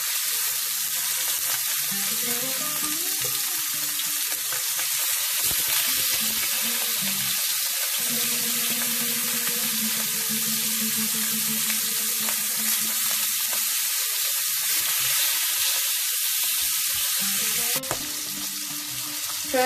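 Salmon pieces sizzling as they pan-fry skin side down in hot oil, a steady spattering hiss that drops a little in loudness near the end.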